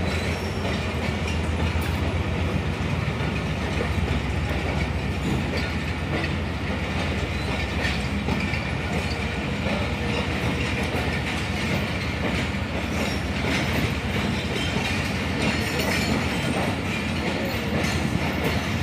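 Pakistan Railways passenger coaches rolling past at low speed, with a steady rumble and wheels clacking over the rail joints.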